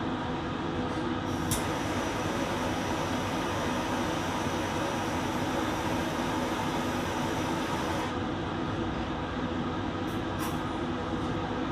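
Laminar flow hood fan running steadily. About a second and a half in, a propane hand torch clicks alight and hisses for about six seconds, flame-sterilizing a scalpel, then cuts off. Two light clicks follow near the end.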